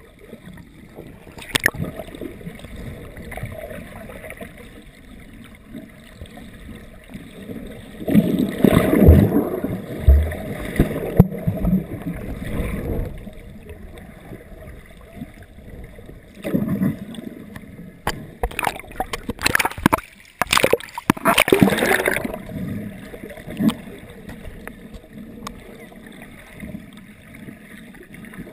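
Muffled underwater water noise heard through a GoPro dive housing, with louder bursts of splashing and bubbling about eight to thirteen seconds in and again around twenty seconds in.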